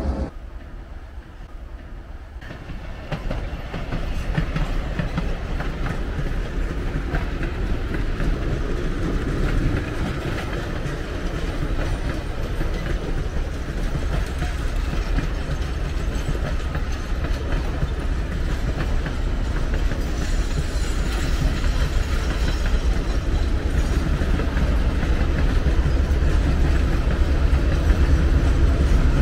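Railroad passenger coaches rolling past at trackside, a steady rumble of steel wheels on rail. It is quieter for the first couple of seconds, then louder and steady, building slightly toward the end.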